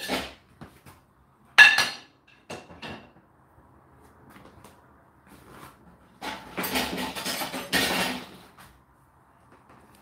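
Pots, pans and lids being loaded into a dishwasher's wire lower rack. A sharp ringing metallic clink comes at the start and another about a second and a half in, then a couple of seconds of clattering near the end.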